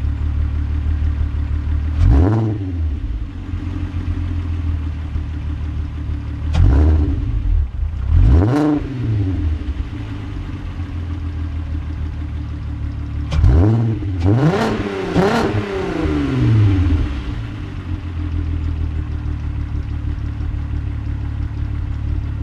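Volkswagen MKIV GTI's 2.8-litre VR6 idling through a Borla aftermarket exhaust, with a series of quick throttle blips that rise and fall back to idle, several coming close together near the middle.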